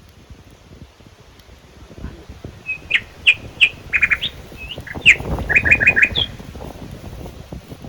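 A bird calling: a string of short, sharp chirps over a few seconds, some in quick runs of four or five, with low rustling noise underneath in the middle.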